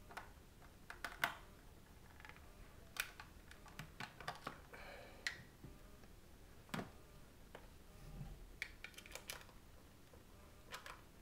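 Scattered light clicks and short scrapes of hard plastic being handled: a Halo paintball hopper's battery pack and battery cover being fitted and pushed shut.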